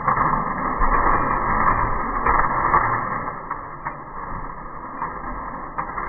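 A tall tower of plastic magnetic building tiles crashing down and clattering across the floor. The dense rattle dies away after about three seconds, leaving a few single clicks of tiles settling.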